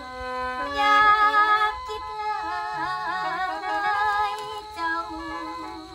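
A woman singing a long, wavering Isan lam (mor lam) phrase, her pitch bending up and down, over a khaen, the bamboo free-reed mouth organ, holding steady drone chords. The voice comes in just under a second in.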